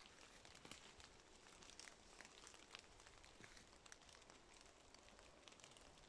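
Near silence: faint outdoor ambience with small, irregular ticks and crackles scattered throughout.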